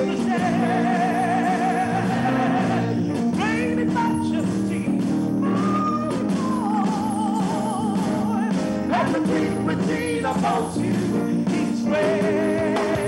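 Gospel choir and lead vocalists singing a worship chorus over music. Several long held notes waver with vibrato.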